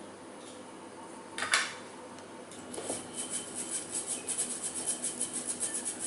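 A utensil clatters once against a mixing bowl about one and a half seconds in. Then it beats cookie batter in the bowl in quick, even strokes, about five a second.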